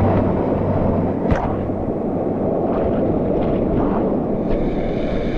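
Waterfall water rushing steadily as a dense, low roar, with one sharp click a little over a second in.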